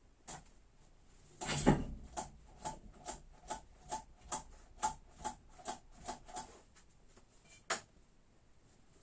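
Hand work in a workshop: a clatter, then a steady run of about a dozen short, even strokes at two to three a second, and a single sharp click near the end.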